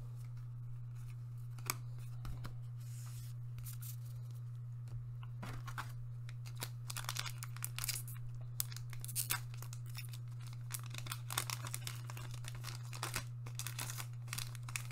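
A One Piece trading-card booster pack wrapper being torn open and crinkled by hand, in a run of short crackly tears and rustles from about five seconds in. A steady low hum runs underneath.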